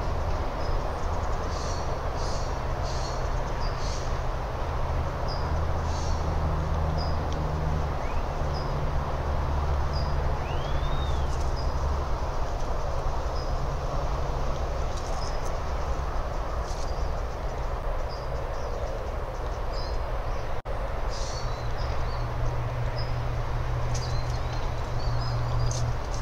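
Outdoor ambience of a steady low rumble with birds calling over it: short, high chirps every second or so, in quick flurries a couple of seconds in and near the end, and one rising-and-falling whistle about ten seconds in.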